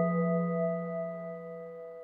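Background music: a held chord of several steady ringing tones, fading out.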